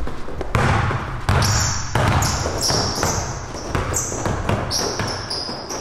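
A basketball being dribbled on a hardwood court, with repeated bounces. From about a second and a half in, basketball sneakers squeak on the wood in short high chirps.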